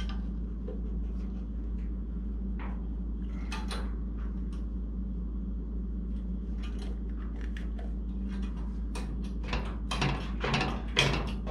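Scattered metal clicks and knocks from an engine hoist's chain and rigging as a hanging big-block engine is worked into place, growing busier and louder near the end, over a steady low hum.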